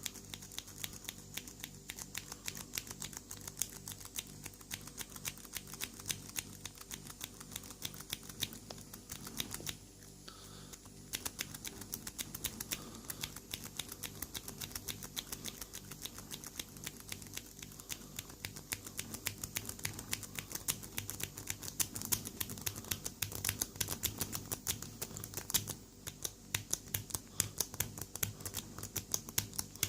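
Lock pick and tension tool working the pin tumblers of a Lockwood 40 mm padlock: rapid, dense metallic clicking as the pins are raked and set, easing off briefly about ten seconds in and again a few seconds before the end.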